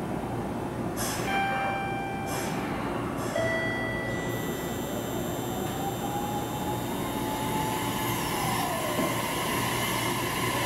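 Electric train at a station platform: two short pitched signal tones about a second and three seconds in, then the traction motors' whine rising and falling in pitch over a steady rumble.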